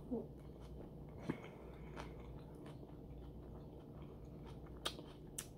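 A person chewing a rice-paper spring roll close to the microphone, faint wet mouth sounds with about five short sharp clicks, over a low steady hum.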